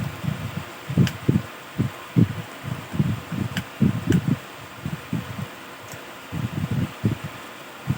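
Handling noise from taking a laptop apart: frequent irregular dull knocks and bumps, with four sharp little clicks spread through, over a steady faint hiss.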